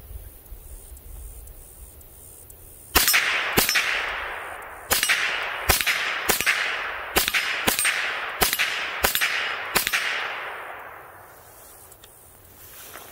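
Ruger 10/22 semi-automatic .22 rimfire rifle fired ten times: two quick shots, a short pause, then eight more at a steady pace of about one and a half shots a second. Each shot is a sharp crack with a fading echo.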